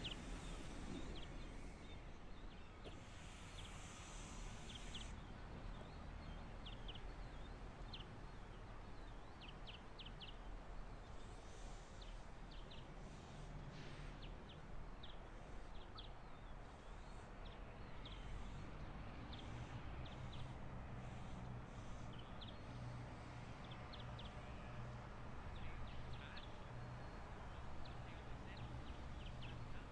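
Birds chirping, short calls over a quiet outdoor background. About halfway through a steady low drone sets in: distant diesel locomotives hauling the train.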